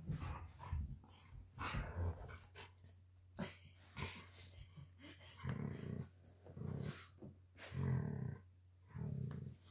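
Dogs play-fighting: a series of about four short, low growls in the second half, with scattered knocks and scuffling before them.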